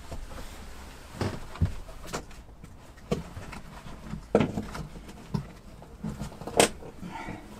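Irregular knocks and clicks of hand work on old, rusted screws in the motorhome's dash frame, with the sharpest knocks about halfway through and near the end.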